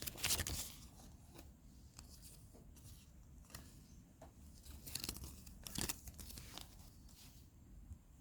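Toy packaging being handled and opened: crinkling, tearing rustles and scattered clicks, loudest just after the start and again around five to six seconds in.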